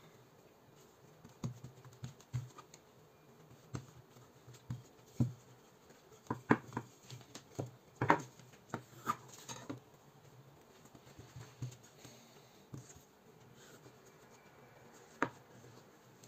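Irregular light taps and scratches as honey-cake dough is worked by hand and utensil, busiest about halfway through.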